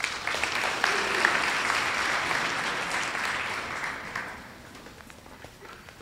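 Audience clapping, dying away about four seconds in.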